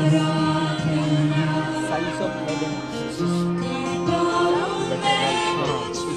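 Live worship band playing a Hindi worship song: acoustic guitar over held keyboard chords, with voices singing.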